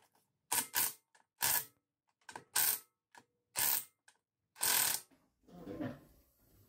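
A hand ratchet worked in short strokes: about seven quick bursts of clicking at uneven intervals, the last one a little longer, then a fainter rustle near the end.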